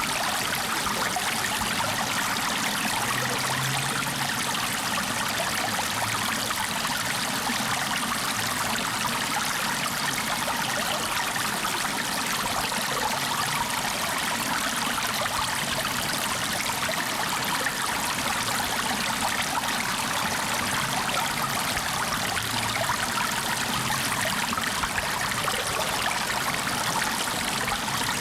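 Flowing water: a steady, even rush with occasional faint low burbles.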